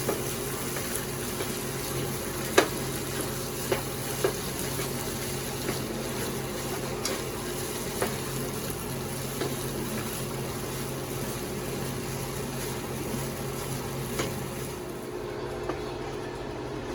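Egg and rice frying in a pan for fried rice: a steady sizzle over a low hum, with a few sharp clicks from stirring, the loudest about two and a half seconds in.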